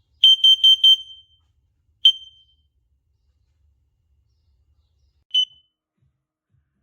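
Carbon monoxide alarm's sounder beeping: four quick, high-pitched beeps in a row, then a single beep about a second later and another about three seconds after that. The run of four is the usual carbon monoxide alarm pattern.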